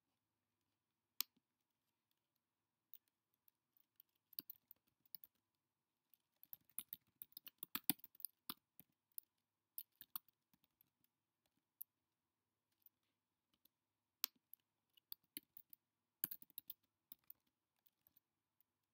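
Faint keystrokes on a computer keyboard: scattered single clicks, with a quick run of typing near the middle and another later on.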